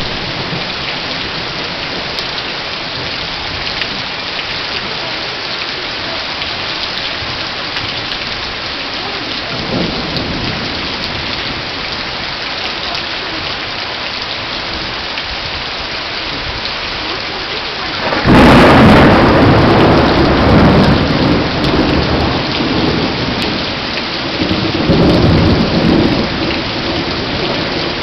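Thunderstorm with steady rain falling. There is a faint rumble of thunder about ten seconds in. About eighteen seconds in, a sudden loud thunderclap breaks and rolls on in rumbling swells for several seconds.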